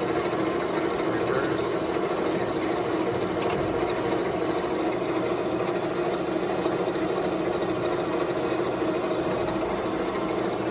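LeBlond Makino 15" x 54" engine lathe running under power, its spindle drive and headstock gearing giving a steady mechanical hum.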